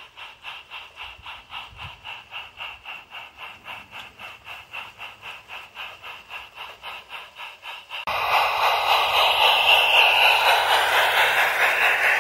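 O gauge model train, the locomotive 'Trematon Hall' hauling coaches on garden railway track, running with an even rhythmic beat of about three or four a second and a light hiss. About eight seconds in it is suddenly much louder, a rushing rattle as the coaches run close by.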